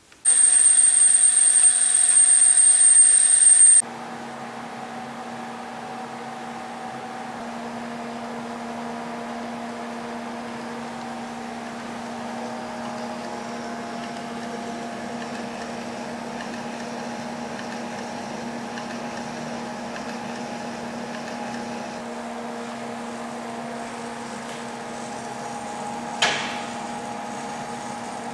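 CNC machine running. A loud, high-pitched whine lasts about four seconds, then gives way to a quieter steady hum with several steady tones. A single sharp knock comes near the end.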